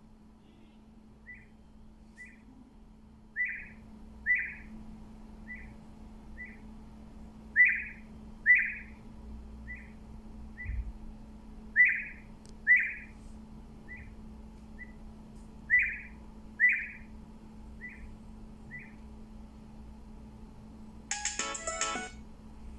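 A Sony Ericsson T300 ringtone played from a Nokia 202 phone through a Denn DBS141 external speaker. It sounds as short, high beeps in pairs, the pairs alternating between softer and louder. About 21 seconds in, the next ringtone starts with a quick run of notes.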